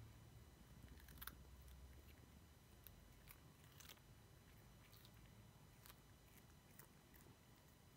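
Faint, irregular crunching clicks of a cat biting and chewing a raw cucumber.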